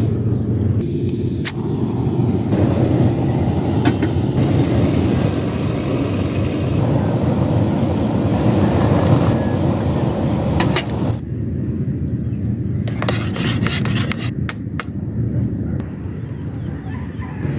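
Steady low rumbling noise throughout, with a few scattered sharp clicks. From about seven seconds in, a short hiss of hot water pouring from a kettle into a metal camp mug.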